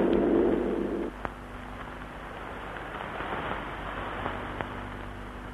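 Shortwave radio static from a numbers station transmission: a steady hiss with a low hum that cuts off about a second in, then fainter hum and a couple of small clicks.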